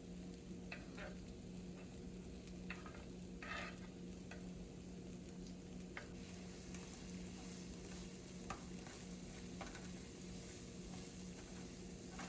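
Chopped onions frying in hot oil in a pan: a faint, steady sizzle, with a few short scrapes and clicks as they are stirred. A steady low hum runs underneath.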